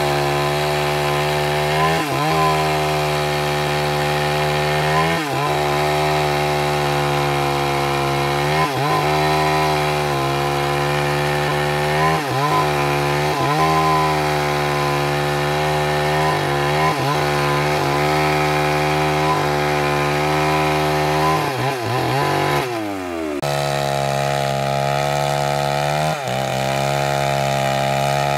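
Small two-stroke gas chainsaw running at full throttle while cutting through an oak log, its pitch sagging briefly every few seconds as the chain bogs down in the wood. About 22 seconds in the engine note falls and breaks off, then comes back steady at full speed.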